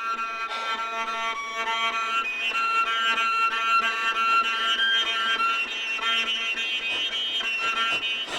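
Viola and baritone saxophone playing contemporary chamber music: several steady, high held tones sounding together, shifting to new pitches every second or two.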